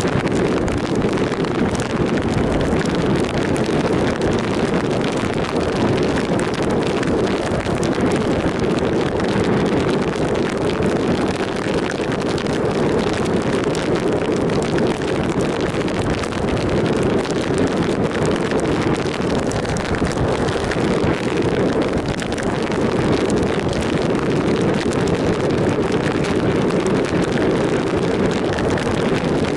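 Steady wind rush over the microphone mixed with the running noise of a 2007 Triumph Sprint ST 1050 motorcycle cruising at a constant speed, with no changes of pace.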